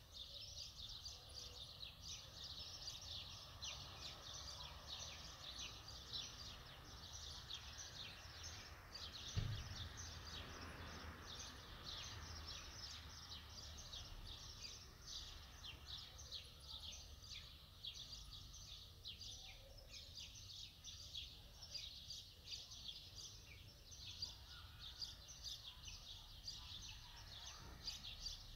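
Many small birds chirping busily and continuously, faint, over a low rumble, with a single thump about nine seconds in.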